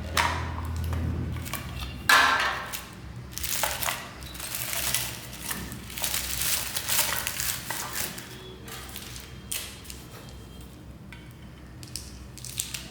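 Candy packaging being handled and torn open by hand: a series of irregular crinkling and rustling bursts, with a sharp, loud one about two seconds in.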